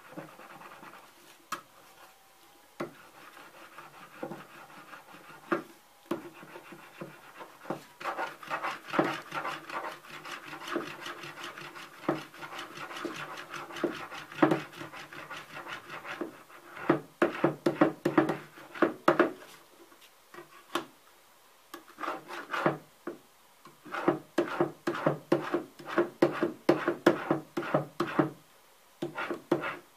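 Steel burnisher rod stroked along the edge of a thin steel card scraper, a rasping metal-on-metal rub in quick repeated strokes that come in bursts with short pauses, the plate giving a faint ring. It is the sound of turning a hook on the scraper's edge.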